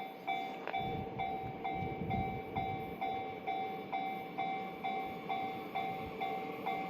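Japanese level-crossing warning bell ringing steadily, about two strikes a second. A train's low rumble comes in for a second or two near the start.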